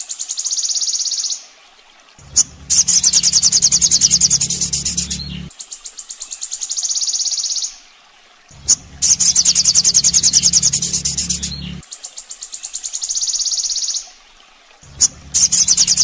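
Olive-backed sunbird (sogon) song from a bird-training track: a high, rapid, pulsing trill. The same phrase repeats about every six seconds with short breaks, and a low hum comes and goes with it.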